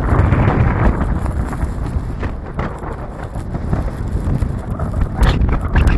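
Strong wind buffeting the microphone in uneven gusts, over the rumble of a car driving.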